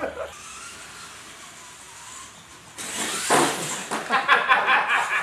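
Radio-controlled monster trucks driving: a quiet hiss at first, then about three seconds in a sudden loud rush of motor and tyre noise that pulses several times a second.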